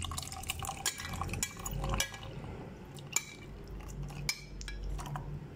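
Soaked almonds and rose petals, with their soaking liquid, tipped into a clear plastic blender cup. Wet pouring and sliding, with scattered clicks and knocks as the almonds drop against the plastic.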